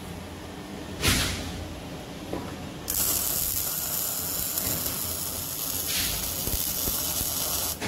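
MIG welder arc crackling on steel: a short tack about a second in, then a steady bead of about five seconds that stops just before the end.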